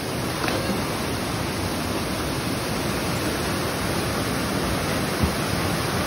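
Small waterfall rushing steadily into a rock pool, with a faint splash about half a second in as a swimmer jumps into the water.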